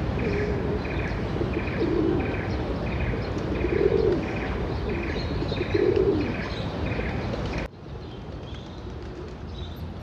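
Feral pigeons cooing, three low coos about two seconds apart, over a steady hiss and a short high chirp repeating about twice a second. The sound drops abruptly to a quieter background near the end.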